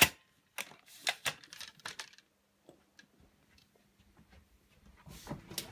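Sharp clicks and light knocks from handling a suitcase and its silver metal handle: several in the first two seconds, then another cluster near the end.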